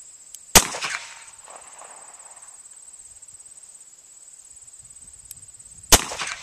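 Two gunshots from a 1970s-era Smith & Wesson revolver fired double action, about five seconds apart, each followed by a short echo. Crickets chirp steadily underneath.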